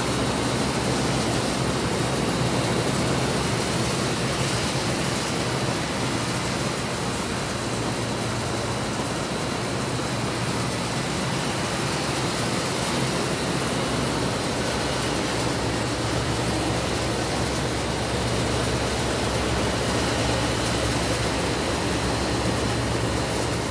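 Steady rushing outdoor background noise with a low, even mechanical hum beneath it.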